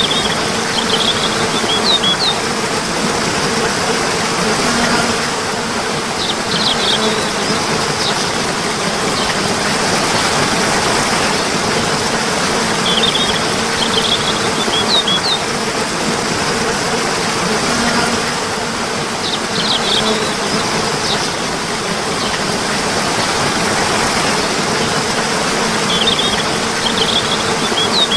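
Steady rushing water of a stream, with small clusters of short, high bird chirps that come back every six or seven seconds in the same pattern.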